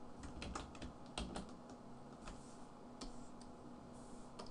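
Faint, irregular clicks of a computer keyboard and mouse being used, a dozen or so scattered taps.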